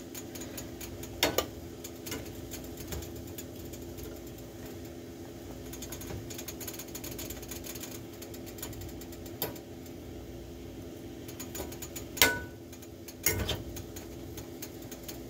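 Metal utensil stirring food in a stainless steel pan: steady small scraping clicks, with three louder clanks against the pan, one near the start and two near the end. A steady low hum runs underneath.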